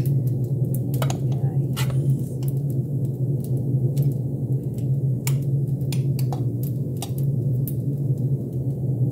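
A steady low hum with several sharp clicks and taps scattered through it.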